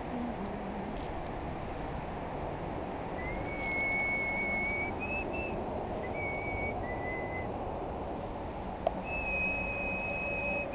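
A person whistling a slow tune of long held notes, starting about three seconds in, over a steady low background noise; a single click near the end.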